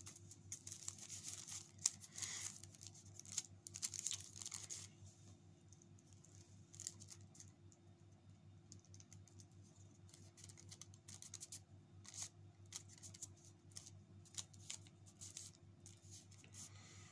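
Faint scattered clicks and scratches of a phone being handled, densest in the first few seconds, over a low steady hum.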